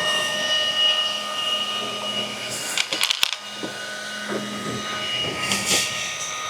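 Pop rivet gun setting rivets: a quick cluster of sharp clicks and snaps about three seconds in, over a steady hum.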